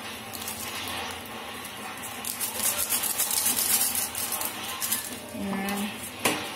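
A small plastic packet crinkling as it is handled, busiest in the middle, with one sharp click near the end, over a steady hiss.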